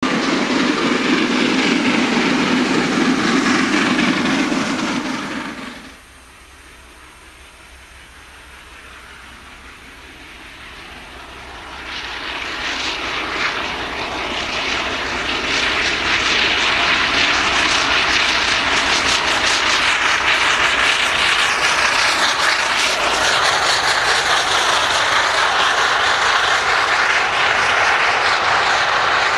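Steam-hauled express train passing at speed on the main line: a broad rushing rumble builds up from about twelve seconds in and stays loud to the end. Before that, an earlier loud low rumble cuts off abruptly at about six seconds, followed by a quieter lull.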